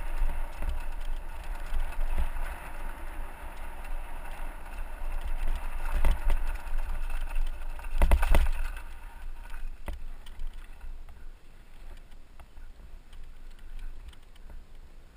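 Mountain bike rolling down a rocky dirt trail: tyres crunching over gravel and stones, with a low rumble of wind and vibration on the handlebar-mounted camera. A loud clattering jolt comes about eight seconds in, and the last few seconds are much quieter.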